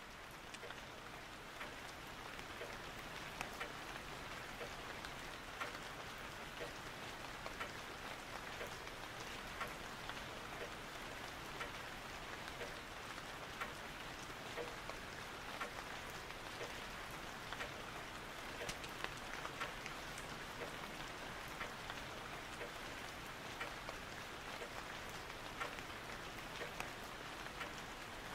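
Steady rain with irregular drop ticks, fading up over the first couple of seconds.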